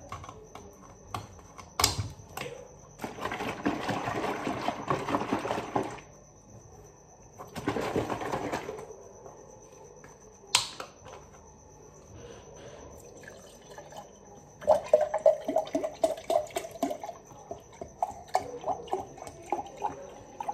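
Orange juice poured from a carton into a glass, gurgling and splashing for the last several seconds. Before that come two stretches of rushing, hissing noise and a sharp click as the carton's cap is opened.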